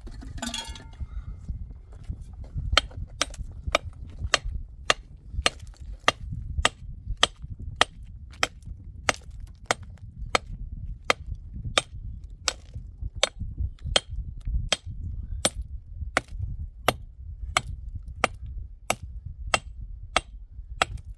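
Steady, rhythmic blows of an adze chopping and shaping wood, about two to three sharp strikes a second.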